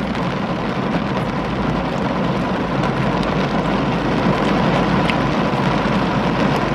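Pouring rain falling on a car's roof and windows, heard from inside the car as a steady hiss.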